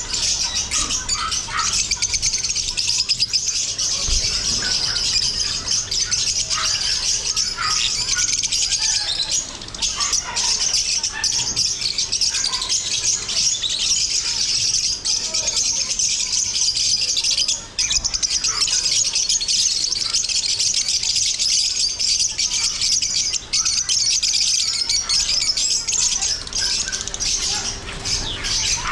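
Many small caged birds chirping and chattering together in a dense, continuous chorus.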